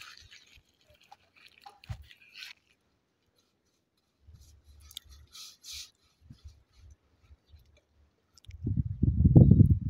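Paintbrush dabbing and scraping on a metal grille, with soft rustles and knocks, then a louder low rumble about a second and a half before the end.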